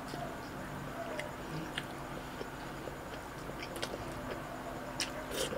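Close-up chewing of a bite of embutido (Filipino pork meat roll) with rice, eaten by hand, with wet mouth clicks scattered throughout. The loudest clicks come about five seconds in.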